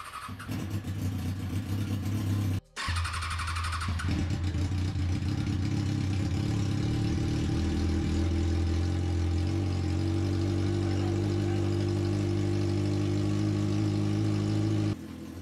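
Kawasaki ZX-6R 636 inline-four motorcycle engine running steadily, cutting out briefly about three seconds in and stopping abruptly near the end.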